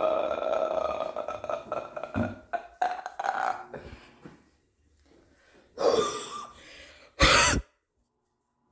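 A person making burp-like croaks by sucking air in rather than letting it out. A long croak trails off over the first second or so, then comes a run of short broken croaks, and a loud short one near the end.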